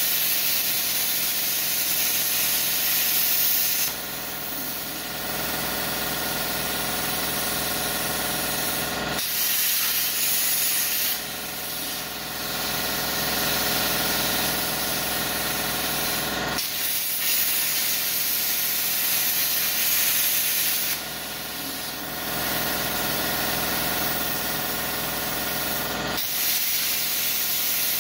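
Plasma cutter cutting through a steel handsaw blade, its torch giving a steady, loud hiss. The hiss drops a few times as the cutting pauses and comes back with a sharp click.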